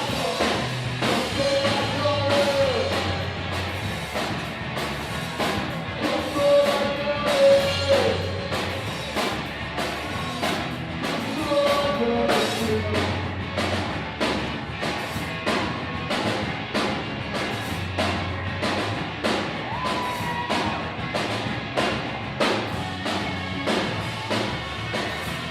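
Rock music with a singer: drum kit keeping a steady beat under bass, guitar and held sung notes.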